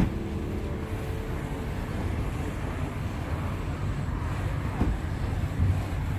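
Outdoor ambience: an uneven low rumble with no distinct events, opening with a short click as the background music cuts off.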